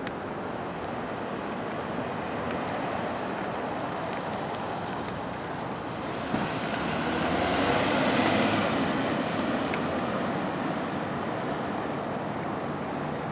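Vehicles driving off at low speed, with a steady rush of road and engine noise. One passes close, swelling in loudness about halfway through and then fading.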